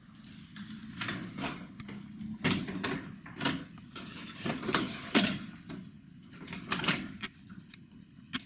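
Paper shopping bag rustling as things are packed into it and handled, in irregular short bursts of noise.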